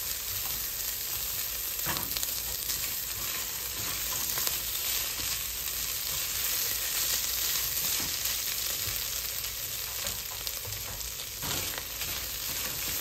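Ground beef and dry Rice-A-Roni sizzling steadily as they toast in a hot pot, stirred with a silicone spatula, with a couple of short scrapes against the pan.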